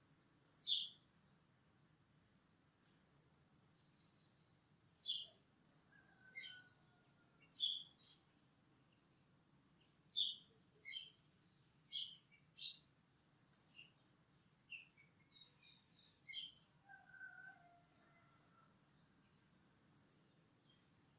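Small birds chirping: many short, high chirps at irregular intervals, some sliding down in pitch, with a few longer, lower whistles. A faint steady hum runs underneath.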